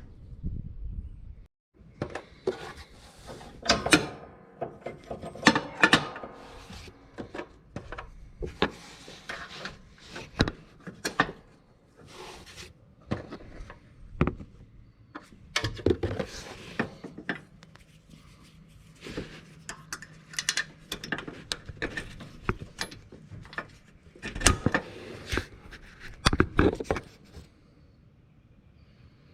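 Irregular metallic clanks, clicks and knocks of hands and tools working on a lawn tractor's mower deck hardware, in clusters with short pauses.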